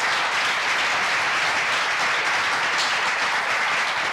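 Lecture-hall audience applauding: steady clapping from many hands.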